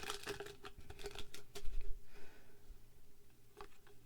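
Foil trading-card booster pack crinkling and being torn open, with a quick run of crackles in the first two seconds, then quieter handling and a sharp click near the end.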